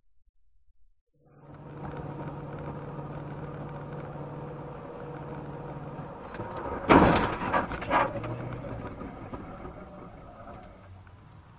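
Car running noise heard from inside the cabin, with a steady low hum, then a loud collision impact about seven seconds in and a second smaller bang a second later: a car crash involving the red sedan just ahead, which ends up with its rear smashed.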